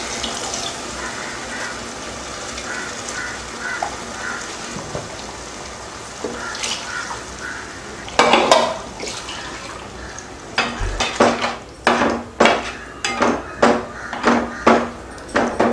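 Perforated steel spoon stirring a thin tamarind kuzhambu in a metal pot, with a scrape about eight seconds in and then the spoon knocking against the pot about twice a second near the end, over the soft bubbling of the simmering curry.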